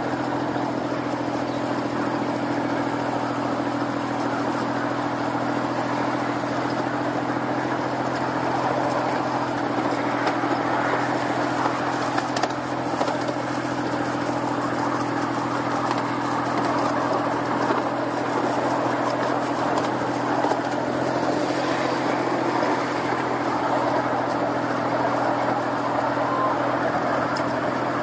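Miniature ride-on train running along its track, heard from aboard behind the diesel-outline locomotive: a steady mechanical hum with rolling noise, unchanging throughout.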